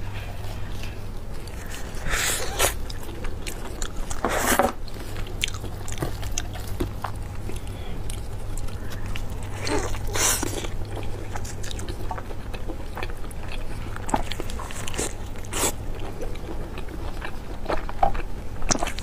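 Biting and chewing of sauce-glazed pork ribs, with many small clicks and a few louder bursts of eating noise about 2, 4.5, 10 and 15.5 seconds in, over a steady low hum.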